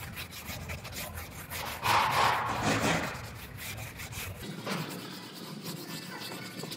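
Hand sanding block with 320-grit sandpaper rubbing back and forth over primer on a car's quarter panel, a dry scratchy rasp, loudest for about a second around two seconds in. Hands also brush across the panel.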